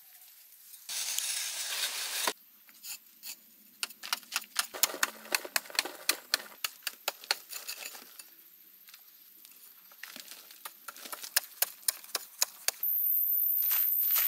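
A long-bladed metal digging tool chopping into hard earth: a rapid run of sharp strikes with soil scraping and falling between them. Near the end a steady high whine starts.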